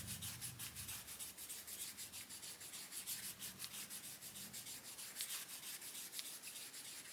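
Super fine steel wool rubbed quickly back and forth over the brass of a pocket tool, a faint continuous scratchy rubbing, to refine the finish.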